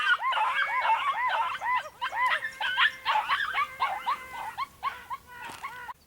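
Hunting dogs yipping in a quick run of short, high cries, several overlapping one another. The yips cut off suddenly near the end.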